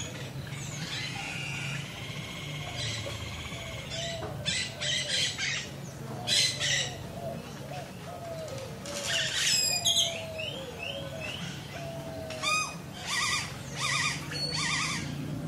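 Rural village morning ambience: several birds calling and chirping, with loud flurries of quick repeated chirps about four seconds in, near the middle and near the end, over a low steady hum.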